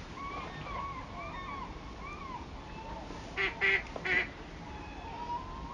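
A duck quacks three times in quick succession about three and a half seconds in, over a run of softer, repeated bird calls and the steady background noise of the river.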